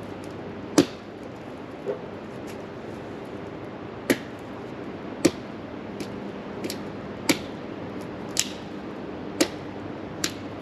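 Wood being chopped or split with a blade: a series of sharp knocks, about one a second, some strokes harder than others.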